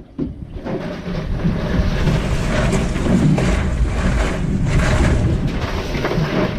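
Wind buffeting the microphone over the wash of sea water against a small boat's hull, a steady rumbling hiss that swells now and then.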